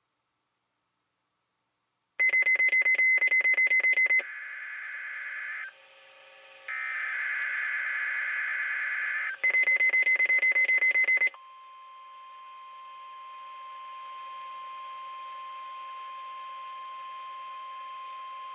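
NOAA Weather Radio weekly test signal. Two loud bursts of rapid, buzzing SAME digital data, about two seconds in and again near ten seconds, with a warbling stretch between them. About eleven seconds in, the steady 1050 Hz warning alarm tone starts and holds, quieter than the data bursts.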